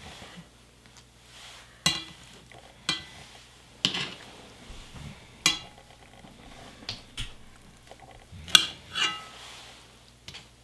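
Metal kitchen tongs clinking and tapping against a pot as kimchi-wrapped pork belly rolls are packed into it: a string of sharp, irregular clicks, the loudest near the end.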